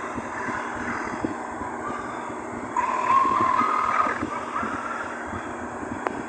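Heavily distorted, layered sneeze sound effect, smeared into a continuous rough crackling noise with a wavering tone running through it. It grows louder about three seconds in.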